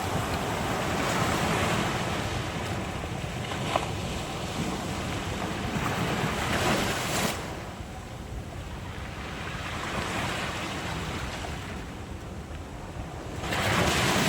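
Sea waves breaking and washing on the shore, swelling and ebbing in several surges, the loudest near the end, with wind buffeting the microphone.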